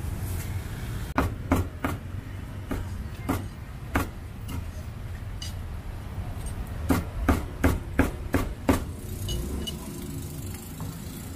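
Cleaver chopping grilled pork on a thick wooden chopping block: a handful of spaced chops, then a quick run of six, about three a second, some seven seconds in. A steady low rumble of street traffic runs underneath.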